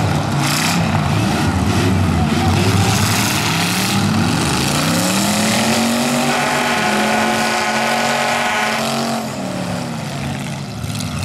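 Full-size V8 derby cars' engines revving hard in the dirt, their pitch swinging up and down. For a few seconds past the middle one engine is held at high revs with its wheels spinning, then it drops off.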